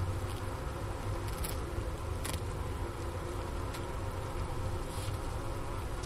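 An overwintering honeybee colony humming inside its hive, heard close up from the hole in the inner cover: a steady low drone with a few brief ticks, about one and a half and two and a half seconds in.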